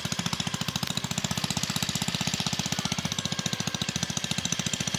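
Small engine running steadily with a fast, even beat.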